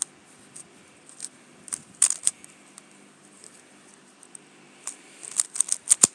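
Valk 3 Power M magnetic 3x3 speedcube being turned by hand during a solve: quick clicks of the layers snapping into place, in small clusters. There is a burst of fast turns about two seconds in and a faster run of clicks near the end.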